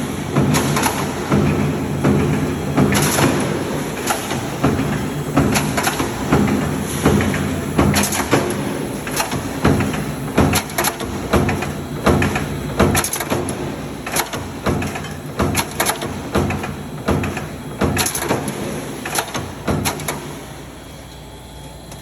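Open-cell ceiling production line running: a steady machine hum with repeated sharp knocks, roughly one or two a second. The knocks stop and the level drops near the end.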